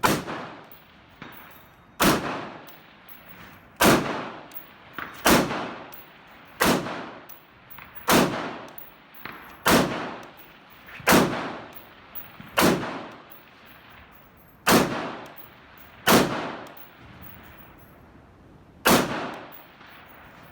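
Retro SP-1/M16A1-style AR-15 rifle with a C7 upper firing about a dozen single semi-automatic shots, spaced steadily one and a half to two seconds apart, each ringing out after the report.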